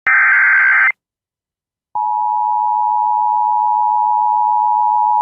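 Emergency Alert System broadcast tones: a short buzzy burst of SAME header data that cuts off just under a second in, a second of silence, then the steady two-tone EAS attention signal starting about two seconds in.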